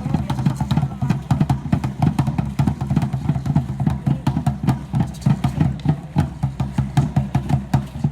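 Danza Azteca drumming: a large drum beaten in a fast, steady rhythm of about three to four strokes a second, with sharp rattling clicks over the beat.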